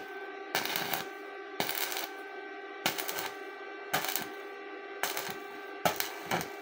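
Stick (MMA) arc welding on a steel strip: the arc crackles and spits in short bursts about once a second. A steady hum runs underneath.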